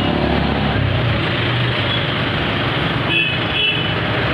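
Steady road and vehicle noise of a ride through traffic, with two short horn toots a little over three seconds in.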